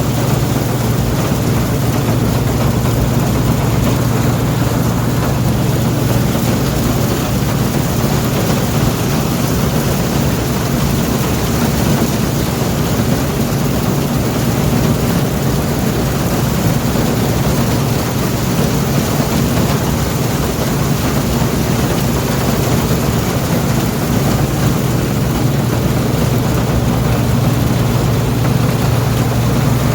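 International Harvester 403 combine running steadily while harvesting soybeans: a constant low engine drone with an even rushing hiss over it.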